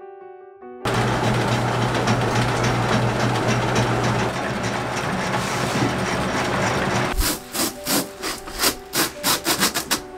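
Workplace machinery making something: a loud steady running noise with a low hum, then from about seven seconds in a run of sharp repeated strokes, a few a second, coming faster toward the end.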